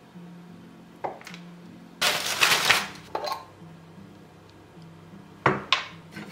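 Kitchen knife and a glass pesto jar handled on a bamboo cutting board: a few clicks about a second in, a louder noisy clatter of several knocks about two seconds in, and two sharp knocks near the end.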